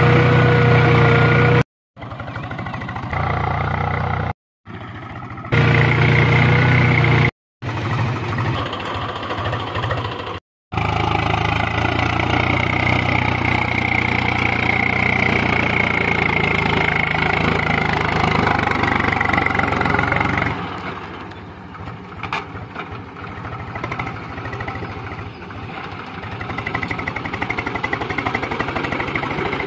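Swaraj 735 FE tractor's three-cylinder diesel engine running under load while it pulls a reversible plough through soil. The sound comes in several short stretches broken by brief silences. After about twenty seconds the deep engine note drops away and a quieter, rougher sound remains.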